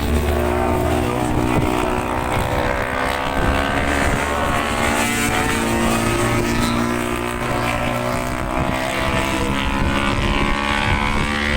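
Superbike racing motorcycles' engines running at high revs, several bikes heard at once, their pitches held fairly steady.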